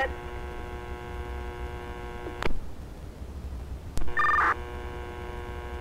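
Two-way radio heard through a Baofeng UV-5R scanner between transmissions: a steady electrical hum, a sharp click about two and a half seconds in and another at four seconds, then a short burst of two high tones as a radio keys up.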